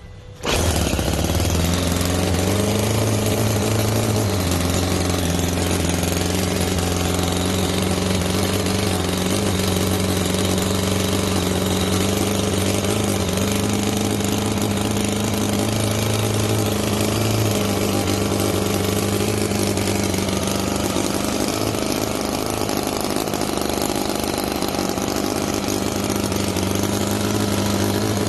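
ENJOMOR 10cc Whippet single-cylinder four-stroke side-valve (flathead) model gasoline engine catching suddenly about half a second in, then running steadily, its speed rising slightly for a couple of seconds before settling.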